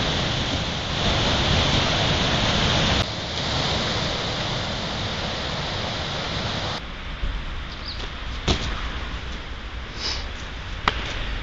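Steady wind-and-surf noise on a beach, with wind on the microphone. About seven seconds in it gives way to a quieter outdoor background with a couple of short, sharp knocks.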